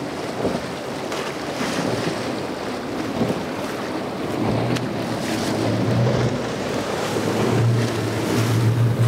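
Boat hull slapping through choppy water with spray and wind on the microphone. About halfway in, the low drone of twin Yamaha 350 V8 four-stroke outboards joins and grows louder as the boat passes close.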